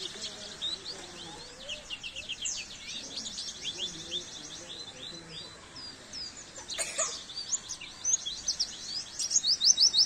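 A white-eye (pleci) sings a rapid, high chirping song of quick repeated trills and short sweeping notes, loudest near the end. There is a short sharp noise about seven seconds in.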